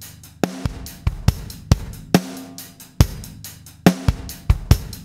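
A rock drum loop of kick, snare and hi-hat played through a software compressor set to extreme over-compression (maximum ratio, very fast attack and release, low threshold). The compressor's attack time is being turned up, letting more of the drum transients through and giving the hits more punch.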